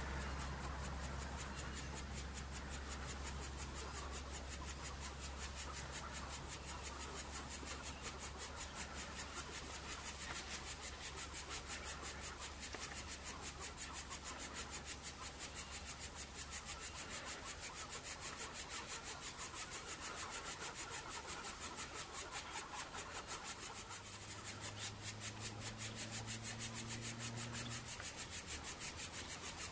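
Cicadas chirring in a fast, even, pulsing rasp. A low steady hum underneath stops about halfway through, and a faint low drone comes in for a few seconds near the end.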